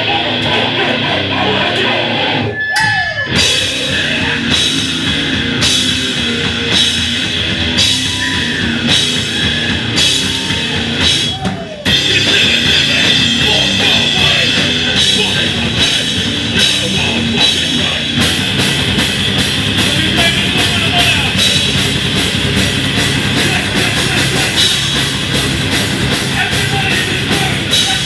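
Beatdown hardcore band playing live with distorted guitar, bass and a pounding drum kit. The first part is a slow, heavy breakdown with a crash hit about every two-thirds of a second. After a short break a little before halfway the band goes on, and from about two-thirds through it plays faster, with drum hits several times a second.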